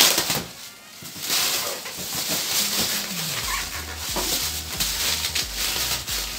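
Clear plastic stretch wrap crinkling and tearing as it is pulled off a cardboard box by hand, with a steady stream of crackles.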